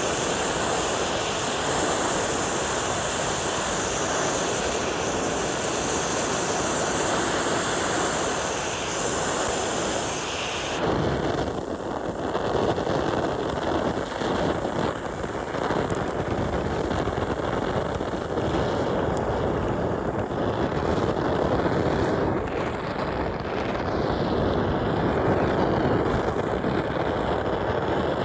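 Gas burner flame melting silver, a loud steady rushing roar. About eleven seconds in it changes abruptly, losing its highest hiss and flickering more unevenly after that.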